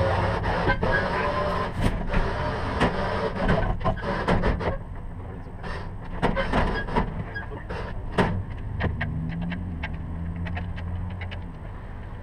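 Tow vehicle's engine running low and steady, with a series of sharp clicks and knocks over it, most of them in the first half.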